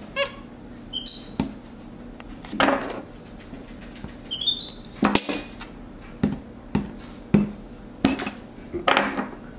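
Irregular knocks and taps on a tabletop as lumps of Play-Doh and hand tools are handled, about a dozen spread unevenly through the stretch. Short high rising squeaks come about a second in and again around four and a half seconds.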